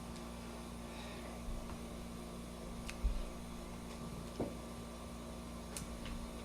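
Quiet room tone with a steady low hum, broken by a few faint knocks and clicks, including a soft thump about three seconds in.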